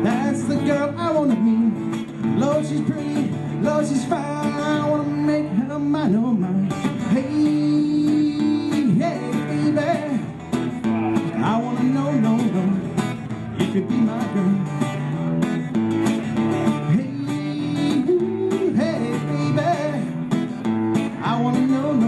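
Male singer accompanying himself on a strummed acoustic guitar, a live solo acoustic pop song.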